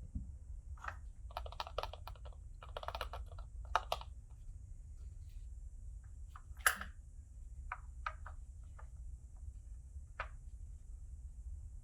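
Light, irregular clicks and taps of small hard objects being handled: quick clusters over the first few seconds, then single clicks a second or so apart.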